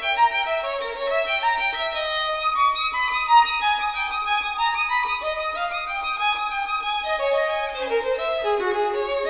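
Solo violin playing a flowing melody of short, connected notes; the line climbs higher around the middle and sinks back lower near the end.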